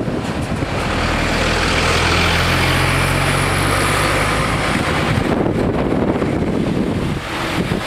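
Road traffic passing close: a coach bus's diesel engine runs with a steady low drone as it drives by, fading out about halfway through, then a small car drives past.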